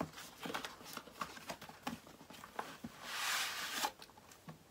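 Cardboard packaging box being opened and handled: a run of small clicks and paper rustles, then a longer scraping rustle a little past three seconds in as the insert is slid out.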